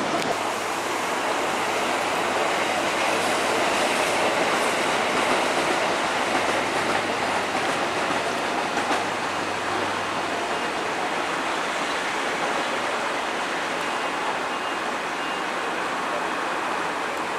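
Electric train running along the tracks: a steady rumble of wheels on rails, with a low hum that fades about ten seconds in.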